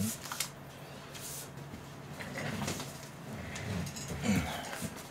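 Rustling and light knocks of plastic takeout food containers being moved and set on a table, with a man's brief low hums in between.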